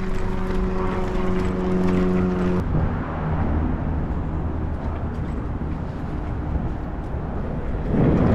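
Stealth Bomber electric enduro bike being ridden slowly: a steady hum with a fixed pitch for the first two and a half seconds that cuts off, then running noise from the tyres and wind that grows louder about eight seconds in.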